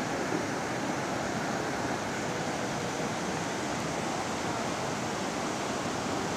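Muddy, swollen river in flood rushing past, a steady, even rush of water.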